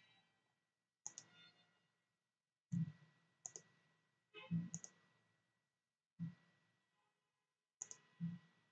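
Faint computer mouse clicks, about seven of them spaced a second or so apart, several with a dull low knock under the sharp click.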